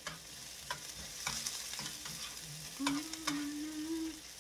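Onion and garlic sizzling in hot oil in a pan while a metal spoon stirs them, with scattered clicks and scrapes of the spoon against the pan.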